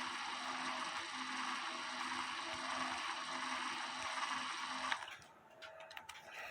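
Cordless drill running steadily as it spins a bolt, winding wire along the threads into a coil spring; the drill stops about five seconds in, followed by a few faint clicks.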